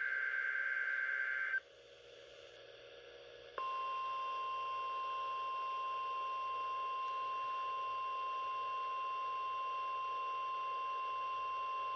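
The tail of a NOAA Weather Radio SAME digital header burst (a warbling data tone), then about two seconds of quieter hiss, then the 1050 Hz warning alarm tone, one steady electronic tone that starts sharply and holds for the rest.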